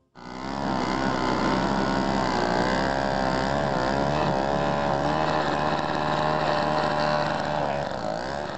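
An engine running steadily at a fairly constant speed, its pitch wavering slightly; it starts abruptly.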